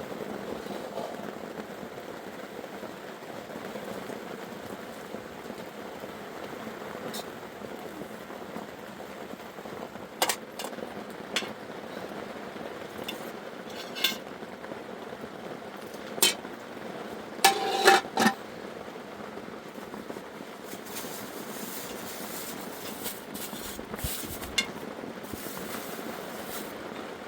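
Metal pots and utensils knocking and clinking now and then over a steady hiss. The loudest clatter comes near the middle, where one piece rings briefly.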